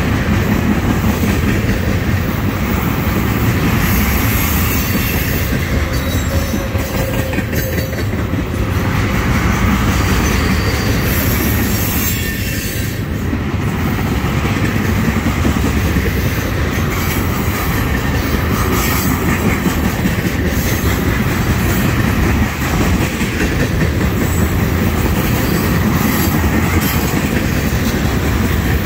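Freight cars loaded with trash containers rolling past close by: a steady noise of steel wheels on the rails, with repeated clicking as the wheels cross rail joints.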